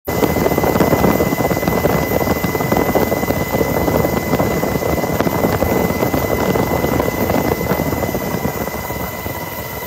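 Coast Guard helicopter in flight, heard from inside the cabin: a loud, steady rotor and engine noise with a thin, steady high whine above it, easing slightly quieter near the end.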